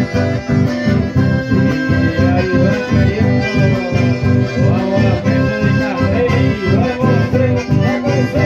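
Chamamé music played by a live band: an accordion carries the melody over a steady rhythmic beat.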